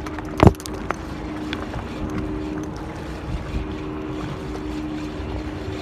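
A steady motor hum over wind and water noise, with one sharp knock about half a second in.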